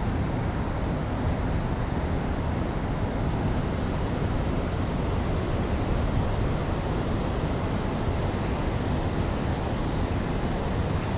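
Steady low rushing noise of wind and fast-flowing river water, with no distinct sounds on top of it.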